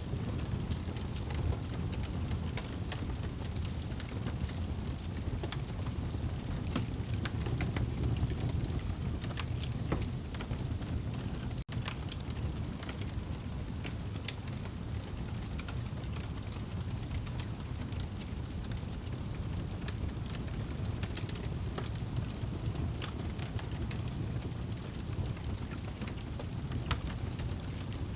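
Wood fire burning in a fireplace: a steady low rumble of flames with frequent sharp crackles and pops, and a momentary dropout a little before the middle.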